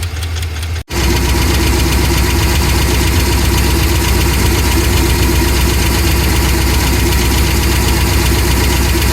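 Ford 7.3L Godzilla pushrod V8 running with a rapid, even ticking and knocking from a failed lifter. The sound cuts out briefly about a second in, then the engine comes back louder for the rest.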